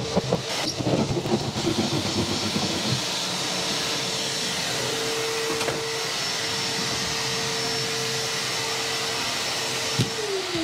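Vacuum cleaner running steadily with a constant whine, while a hand drywall saw rasps through sheetrock during the first few seconds. Near the end a click as the vacuum is switched off, and its whine starts to fall as the motor spins down.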